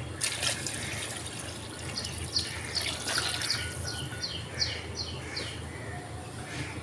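Water being poured into a clay pot of browned beef and spices, running and splashing as the pot fills, with a run of short high chirps in the middle.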